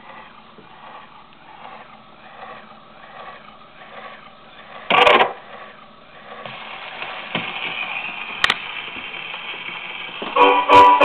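A gramophone playing a 78 rpm shellac record: a faint swish with each turn of the disc, a sharp knock about five seconds in, then a steady, growing hiss and crackle of the needle in the groove. Dance-band music starts just before the end.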